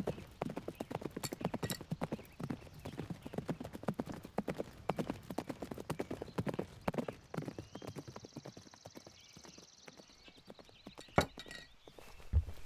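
Horses' hooves clip-clopping on a dirt road as two horses ride away, the hoofbeats growing fainter. Two sharper knocks sound near the end.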